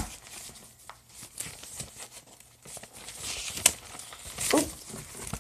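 Paper sketchbook pages rustling and crinkling as they are handled and turned, with a sharp knock right at the start.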